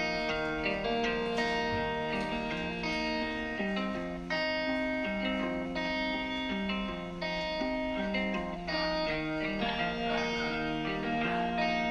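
Background music: an instrumental with plucked guitar playing a melody over shifting chords, at a steady level.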